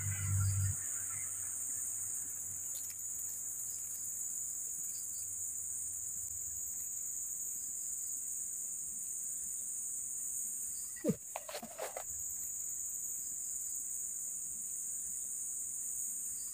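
Steady, shrill drone of an insect chorus, unbroken throughout. A few short clicks and rustles come about eleven seconds in.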